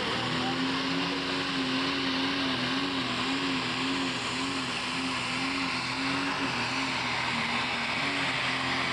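Pro stock pulling tractor's turbocharged diesel engine running flat out under full load as it drags the weight sled down the track. The engine note holds steady with a slight waver in pitch.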